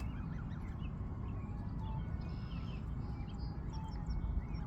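Gosling peeping in short, scattered chirps over a steady low rumble.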